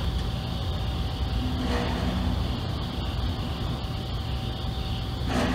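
Compressors of refrigerated containers starting up, heard from about 200 feet away: a faint sudden bang about two seconds in and a louder one near the end, each with a short low ringing after it, over a steady mechanical hum.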